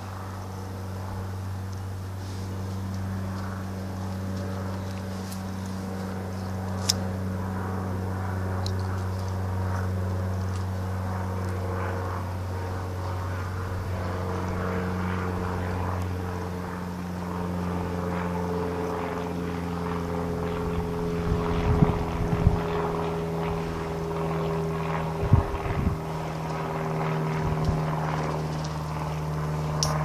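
Steady drone of an aircraft engine overhead, its pitch slowly falling in the second half. A few short low thumps come about two-thirds of the way through.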